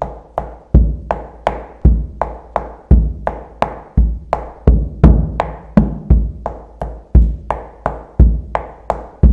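Lithuanian kelmas folk drum with a goat-skin head played in a waltz rhythm: a deep bass stroke with a felt beater on the middle of the head, then two lighter, higher strokes with the beater's shaft on the drum's rim, about one bar a second.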